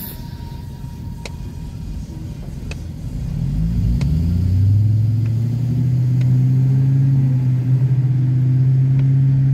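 Car engine heard from inside the cabin, its note rising as the car accelerates about three seconds in, then holding a steady drone.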